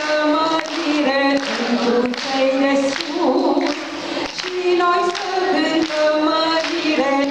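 A woman singing a Romanian song solo into a microphone, with the audience clapping along.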